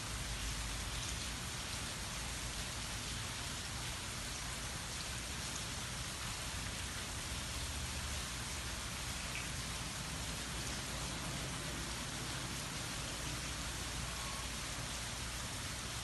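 Light, steady rain falling on trees and grass: an even hiss with a low rumble underneath and no thunder.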